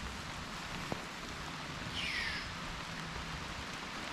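Steady rain falling on surfaces, an even hiss throughout. About halfway through, one short whistle sweeps downward in pitch.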